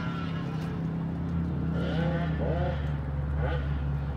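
Go-kart engines running at a distance, a steady low drone, with a deeper hum joining about a second in.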